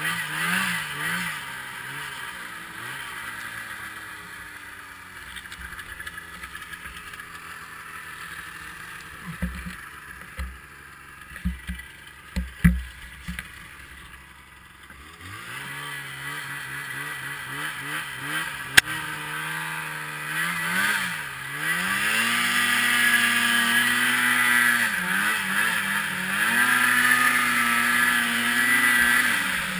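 Snowmobile's two-stroke twin engine (2012 Polaris IQ Shift 550) revving up and down, then easing to a lower, quieter run with several sharp knocks in the middle, before climbing again about halfway through and holding high revs near the end.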